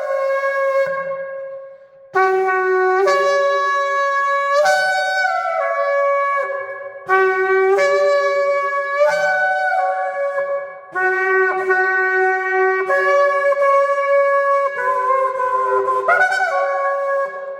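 Shofar blown in long, loud blasts that step back and forth between a higher and a lower note, with short breaks for breath about two and seven seconds in.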